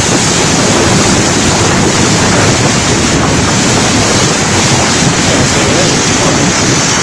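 Torrential wind-driven rain pouring down in a violent storm, a loud, steady rush with strong wind blasting the microphone.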